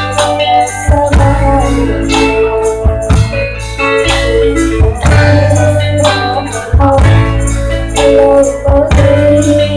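Loud music with a sustained low bass, steady melodic instrument lines and regular percussion strikes.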